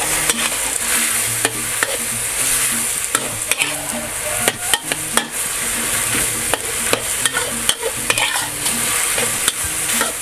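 Diced chicken stir-frying in a thin sauce in a wok: a steady sizzle, with the spatula scraping and tapping against the pan many times as it is pushed around. The chicken is being cooked through in the seasoning.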